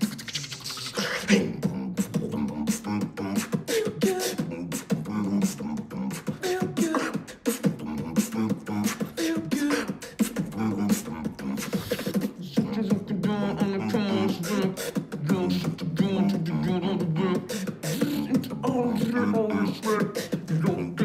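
Human beatboxing: rapid mouth-made kick, snare and hi-hat clicks and pops in a steady groove, with a hummed melody and bassline under them. There is a warbling trill partway through.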